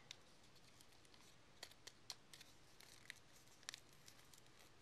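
Near silence: room tone with a few faint, scattered clicks from small objects being handled.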